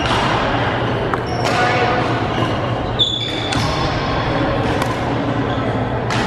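Badminton rackets striking a shuttlecock in an echoing hall: a few sharp cracks, one as it starts, one about a second and a half in and two more near the end, with short high squeaks of court shoes on the floor between them. A steady low hum runs underneath.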